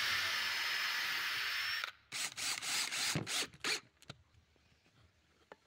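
Electric drill boring into a wooden box: one steady run of about two seconds, then several short bursts, then it stops.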